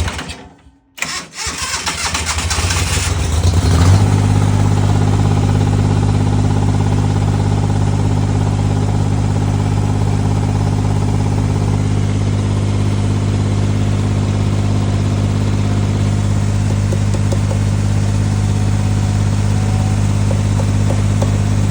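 1984 Ford skid steer's engine being cranked by the starter for a couple of seconds, then catching about four seconds in and running steadily.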